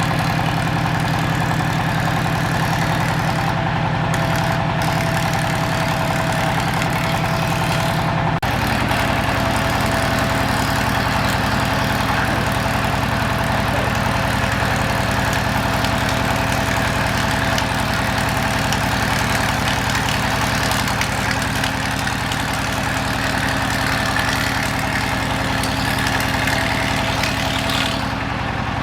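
Woodworking machinery running steadily with a constant hum. The hum changes abruptly about eight seconds in.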